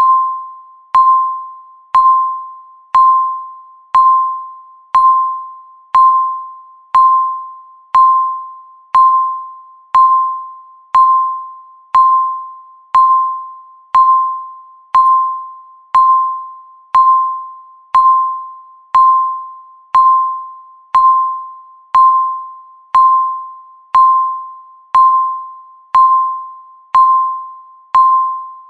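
Countdown timer beeping once a second, each second left marked by a short ringing electronic tone that starts sharply and fades away before the next.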